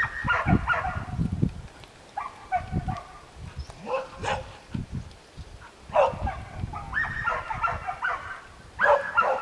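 A dog barking in short, repeated bursts, in clusters with gaps between them.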